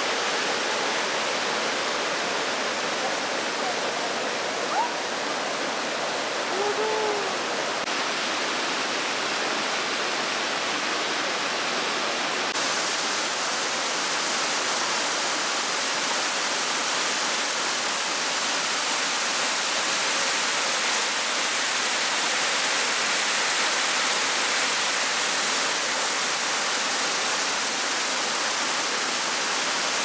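Steady rush of a mountain stream's waterfalls pouring over rocks into a pool, an even hiss of falling water.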